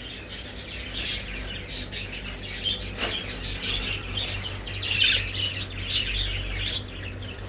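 Many caged budgerigars chirping and chattering, a dense run of short high calls, over a low steady hum.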